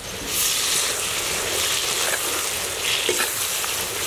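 A stir-fry of vegetables and egg sizzling in a steel kadai as it is stirred with a slotted metal ladle. The sizzle gets louder about a third of a second in and then holds steady.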